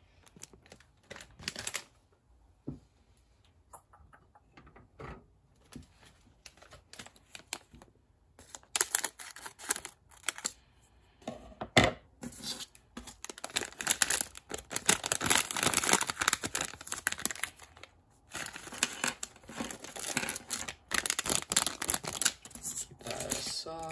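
Crinkling and rustling of a plastic LEGO Minifigures blind bag being handled and torn open. Scattered light crinkles at first, then from about eight seconds in a long stretch of dense crinkling and tearing, with a short break about two-thirds of the way through.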